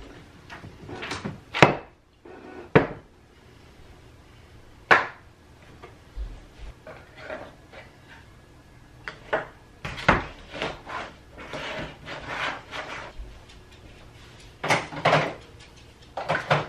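Packing handling sounds: small jars and bottles being picked up and set down on a table and into small cardboard boxes. Irregular clicks, knocks and light rustling, with a few sharper knocks.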